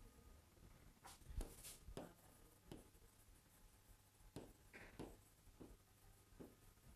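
Pen writing on an interactive display screen: faint short taps and strokes as words are written, with the loudest stroke and a brief scratchy hiss about a second and a half in.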